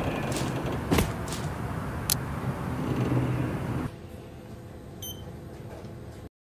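Low vehicle rumble from the trucks on the highway, with a few sharp metallic clicks, the loudest about a second in. About four seconds in it drops to a faint hum with a few thin high tones, then cuts off a little before the end.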